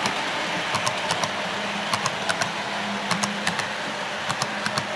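HO scale model passenger train running on the layout: a low steady motor hum with irregular light clicking of the wheels over rail joints and turnouts.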